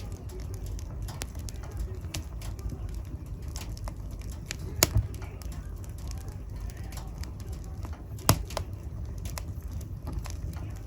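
Wood fire burning in a fireplace, crackling with many small irregular snaps over a low steady rumble of the flames. Two louder pops come about five and eight seconds in.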